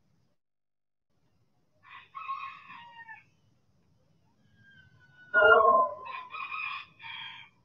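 Roosters crowing: a fainter crow about two seconds in, then a louder crow starting about five seconds in that breaks into several syllables.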